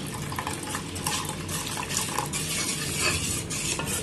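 Metal spoon stirring milk and cornflour in a stainless steel pan, with liquid swishing and irregular light clinks and scrapes of the spoon against the pan.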